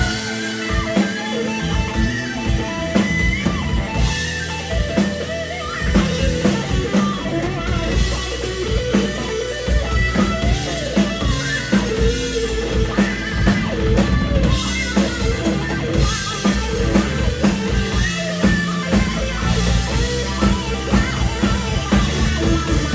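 Live rock band playing an instrumental passage: electric guitar over keyboard and drum kit.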